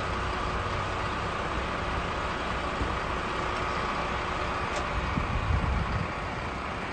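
Fire truck's engine running steadily at idle: a constant mechanical drone with a steady whine over it. A few low thumps come about five seconds in.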